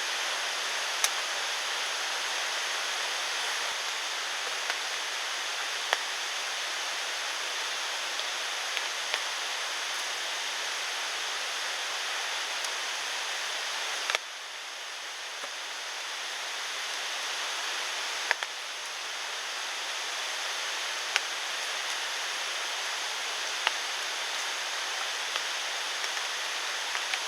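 Steady rush of outdoor water noise with scattered sharp ticks. It dips suddenly about halfway through, then swells back.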